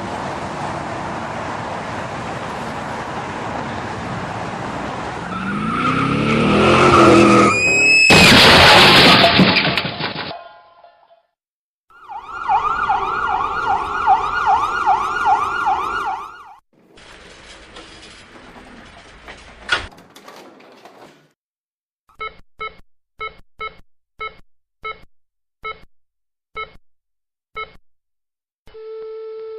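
Car-crash sound-effect sequence: a car running, then tyres screeching into a loud crash with debris settling. A siren follows, wailing in quick cycles. Then come about nine short electronic beeps that slow down, and a steady tone starts near the end, like a heart monitor going to flatline.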